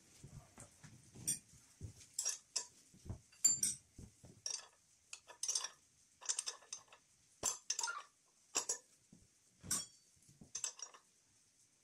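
Irregular light metallic clicks and clinks, about a dozen short taps, some in quick clusters, from metal parts and fittings being handled by hand.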